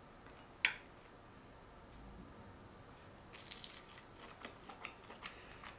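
A single sharp click, a fork against a glass sauce cup, about half a second in. Near the middle comes a faint crunchy bite into a crisp breaded chicken tender, followed by soft chewing.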